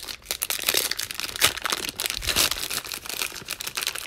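Plastic cello wrapper of a Donruss basketball card pack being torn open and peeled back from the cards, a dense, irregular crinkling and crackling.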